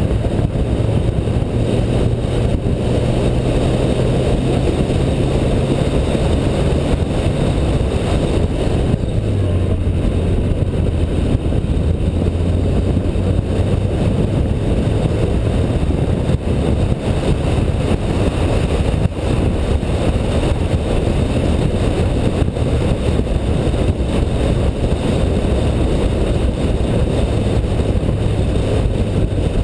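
Car engine running at speed around a racetrack, with steady wind and road noise. The engine note drops to a lower pitch about nine seconds in and holds there.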